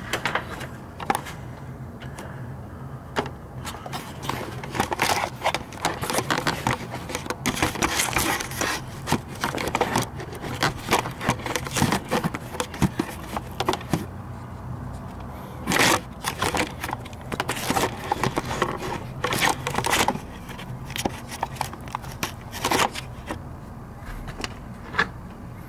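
Irregular clicks, knocks and scrapes of hands and tools working around an open spark plug well in a truck's engine bay, over a low steady hum.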